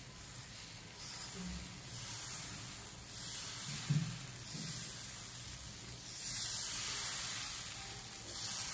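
Moong dal chilla batter sizzling softly on a hot nonstick pan as a ladle spreads it round in circles, the hiss rising and falling with the strokes. A soft knock of the ladle on the pan comes about four seconds in.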